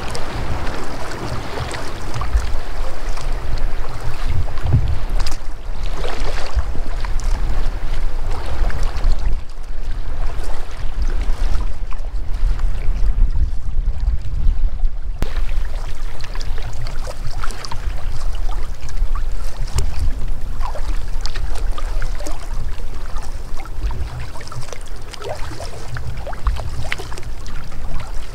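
Wind buffeting the microphone on a sea kayak's deck as a heavy, steady rumble, with water splashing and slapping against the hull and paddle as the kayak is paddled through wind-driven chop.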